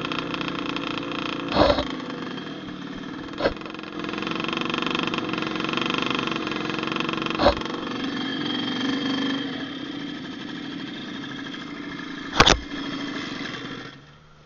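Off-road trail motorcycle engine running, its pitch rising and falling, with four sharp knocks, the loudest about twelve seconds in. The engine sound falls away near the end.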